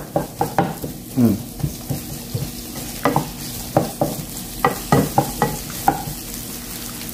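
Sliced onion frying in chili oil in a hot pan, sizzling steadily, while a wooden spatula stirs and scrapes it with irregular knocks and scrapes against the pan.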